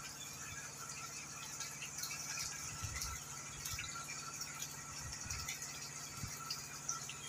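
Catfish splashing and slurping at the water surface as they feed on floating pellets: soft continuous pattering and crackling with scattered low thumps, over a faint steady hum.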